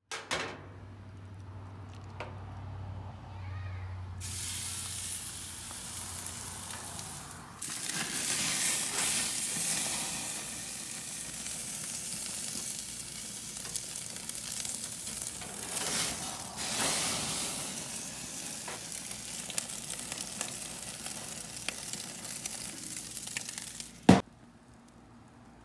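New York strip steak searing on the hot grates of a gas grill at over 400 °F, sizzling steadily. The sizzle starts about four seconds in and grows louder from about eight seconds. Near the end comes a single sharp clunk, after which the sound drops away.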